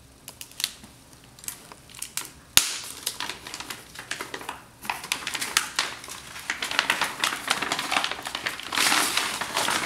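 Packing material in a shipping box crinkling and rustling as it is handled and pulled away, with a sharp snap about two and a half seconds in; the rustling grows busier after it.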